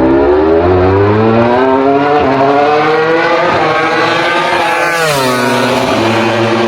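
Yamaha's V4 MotoGP racing engine revving loud: its note climbs steadily for about five seconds, drops sharply, then holds a steady lower pitch.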